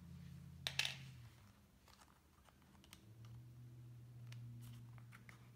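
Hands handling paper planner inserts and a small metal paper clip: soft paper rustles and light clicks, the loudest a quick pair of clicks about a second in, over a faint steady low hum.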